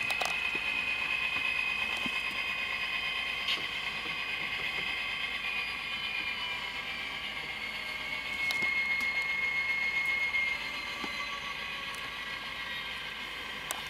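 The Tsunami sound decoder in an HO-scale Atlas SD26 model locomotive plays its recorded EMD 567D diesel engine running, through the model's small onboard speaker, as the model rolls along the track. The sound is steady and thin, with little bass. About two-thirds of the way through, a high tone grows louder for a couple of seconds, and there are a few faint clicks.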